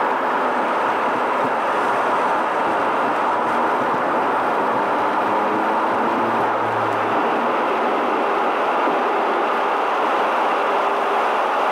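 Jet airliner's engines at takeoff power, heard from inside the cabin: a steady, loud roar through the takeoff roll and climb-out.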